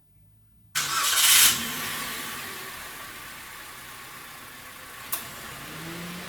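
Car engine starting abruptly about a second in, loudest for the first half second, then running steadily and slowly quietening, with one sharp click near the end.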